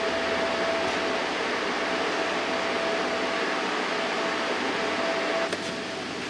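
Steady fan-like whirring noise with a thin constant whine; the whine drops away and the noise eases slightly near the end.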